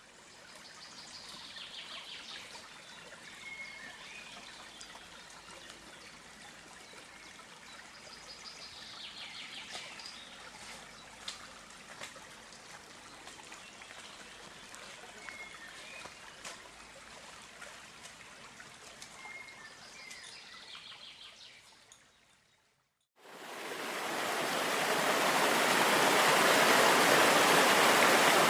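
Stream water trickling, with occasional bird chirps every few seconds. Near the end there is a brief dropout, then the steady, much louder rush of a waterfall.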